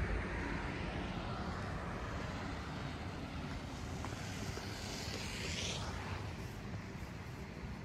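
Street traffic heard at a distance: a steady low rumble from vehicles, with a brief hiss about five seconds in.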